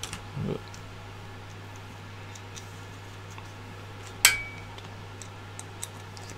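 Hand-tool handling at a workbench: a precision screwdriver set down on the desk about four seconds in gives one sharp click with a brief ring. Faint small ticks of handling parts sound against a steady low hum.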